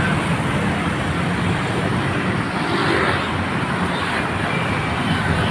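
Road traffic: the engines and tyres of passing vehicles, a steady, even noise with a low engine hum underneath.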